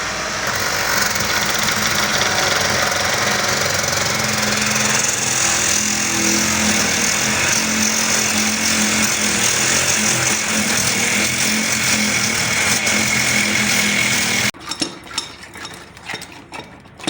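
A power tool running steadily with a high whine for about fourteen seconds, then cutting off suddenly, followed by a few light knocks and clatter.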